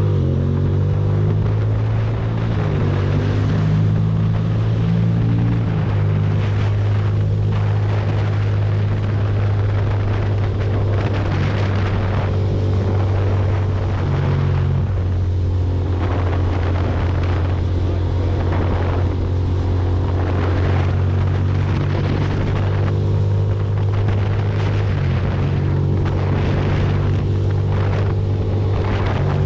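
Ducati Monster V-twin engine running at a steady cruising speed, its pitch stepping slightly a few times, with wind rushing over the microphone.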